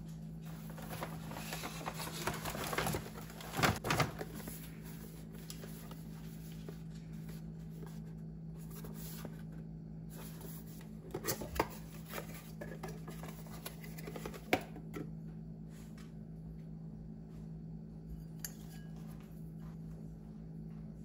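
A cardboard gift box and its paper insert being handled and opened, with scattered rustles and light knocks, most of them near the start and in the middle. A steady low hum runs underneath.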